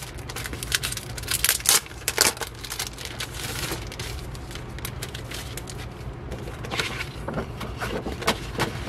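Clear plastic poster sleeves crinkling and paper posters rustling as they are handled: a run of sharp crackles, over a steady low hum.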